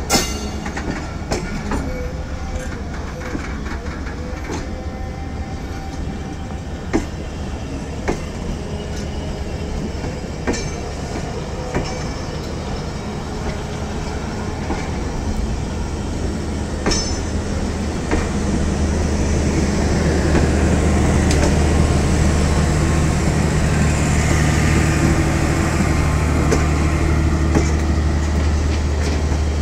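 Pakistan Railways train running on the rails: a steady rumble with scattered sharp clacks of wheels over rail joints. From about eighteen seconds in it grows louder, with a deeper steady hum.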